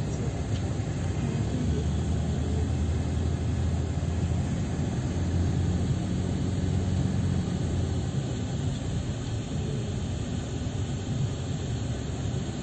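Engine and road noise heard from inside a moving vehicle's cabin: a steady low drone that swells slightly midway.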